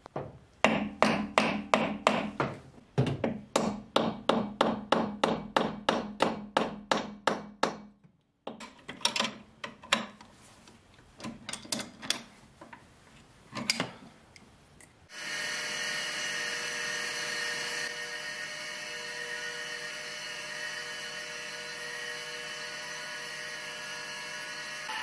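A wooden mallet knocking on the spindle of a homemade lathe in a fast, even run of blows, about three a second, for some eight seconds, followed by a few scattered clinks of metal on metal. About fifteen seconds in, the lathe starts and runs steadily with a whine of several fixed tones as it faces the end of a metal bar.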